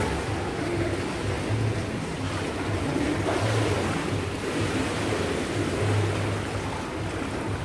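Water splashing and churning in an indoor swimming pool as a child swims with kicking strokes, over a steady low hum.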